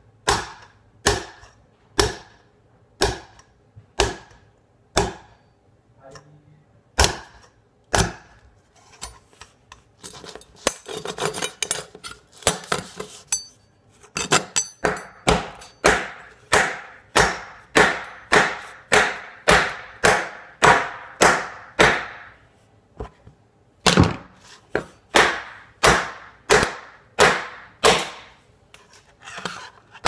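Kitchen knife chopping down again and again on a RAM stick against a tabletop, each blow a sharp knock. The blows come about once a second at first, with a stretch of quicker, lighter clatter in the middle, then speed up to about two a second.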